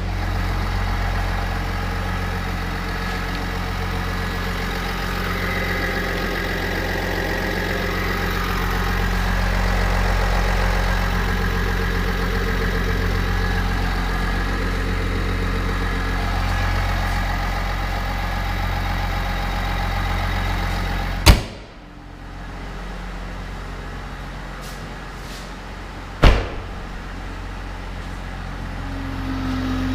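GMC Sierra 1500's 3.0-litre Duramax inline-six turbodiesel idling steadily. About two-thirds of the way in, a sharp thump is followed by the engine sounding quieter, and a second sharp thump comes about five seconds later.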